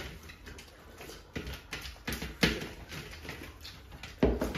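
Close-up eating sounds: fingers working curry-soaked rice on steel plates and mouths chewing, with a few short sharp clicks and smacks.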